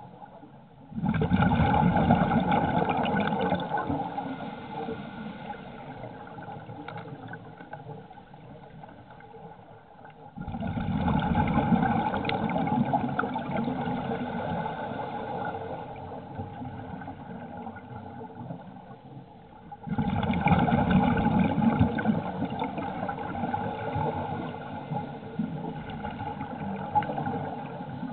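Scuba regulator breathing underwater: three exhalations about ten seconds apart, each a sudden rush of bubbling that tails off over several seconds, over a steady faint hum.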